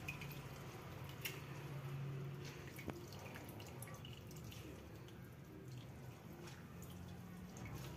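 Faint, irregular drips and small splashes of water falling back into a metal bowl as hands squeeze the water out of boiled, chopped radish.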